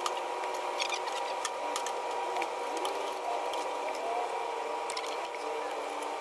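Steady hum of running air-conditioning machinery with a few held tones, with scattered light clicks and taps from hand work on the outdoor unit's wiring and valves.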